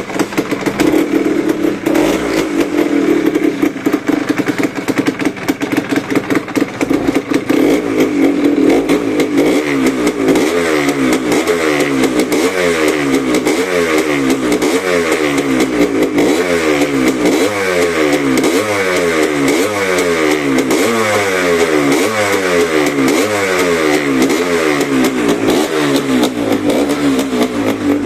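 Suzuki RA125 two-stroke single-cylinder engine running through a stock Suzuki Gamma 250 silencer. It holds a steady note at first, then from about nine seconds in its pitch rises and drops again roughly once a second.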